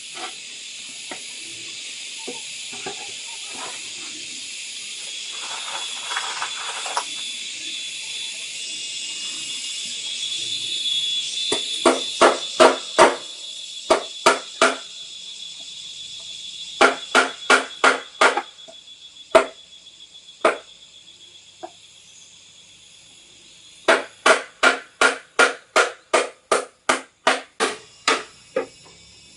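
Hammer blows in quick runs of several strikes, about three a second, each with a short ring, over a steady high insect chorus. The longest run, about a dozen blows, comes near the end.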